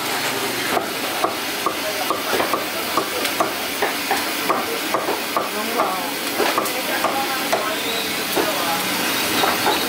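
Knife strokes cutting a barracuda on a wooden chopping block: short sharp scrapes about two a second, over a steady background hiss.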